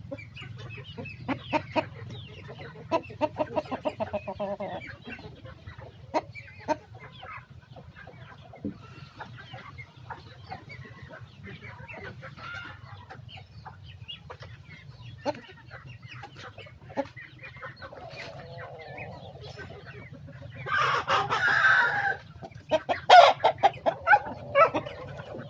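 Shamo-Aseel game roosters clucking in runs of short, sharp calls, with a louder burst of calling about three quarters of the way through.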